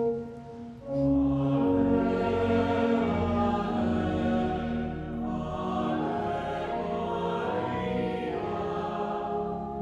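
Slow, chant-like sacred choral singing with long held notes.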